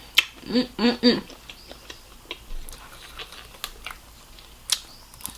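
Close-up eating sounds: mouth clicks and smacks while chewing seafood, with three short hummed 'mm' sounds of enjoyment about half a second to a second in.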